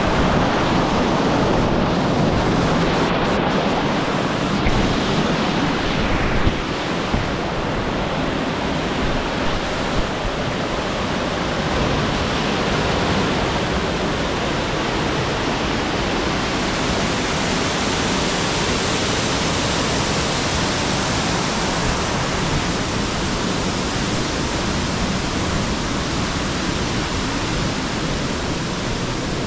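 Steady, loud rushing of fast-flowing river water, an even noise with no let-up.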